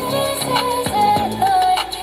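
K-pop dance track playing: a female vocal melody with sliding notes over a steady drum beat.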